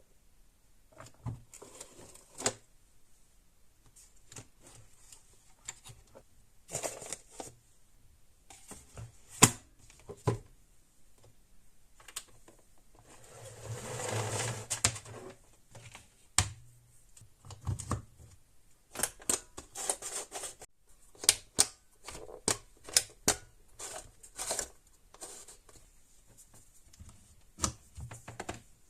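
Small hard plastic parts of a handheld vacuum being handled: scattered clicks and taps, some in quick runs, with a steadier noisy stretch of about two seconds midway.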